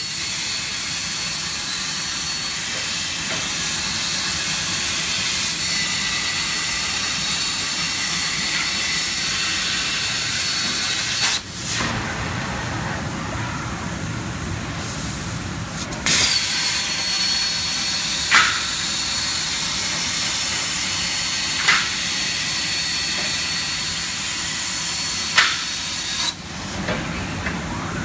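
Mega Hornet 1000 CNC plasma cutter's torch arc cutting steel: a loud steady hiss with a high whine. It breaks off sharply about eleven seconds in and again near sixteen seconds, with a few short sharp chirps in the second half.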